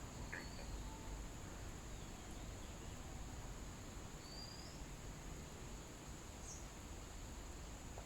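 Faint background of insects droning steadily at a high pitch, with a few short bird chirps.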